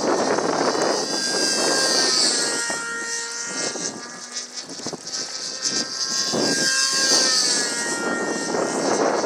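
Control-line stunt model plane's engine and propeller running as the plane flies its circle on the lines, the pitch sliding slowly down and back up as it passes and turns. Wind noise on the microphone near the start and end.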